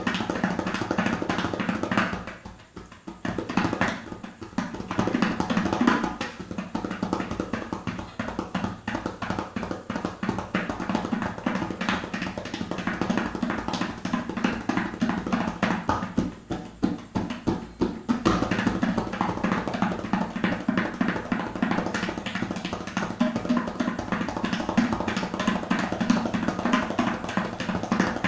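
Tabla played in a fast, unbroken stream of strokes, with a steady ringing drum tone beneath, easing off briefly about three seconds in and again about seventeen seconds in.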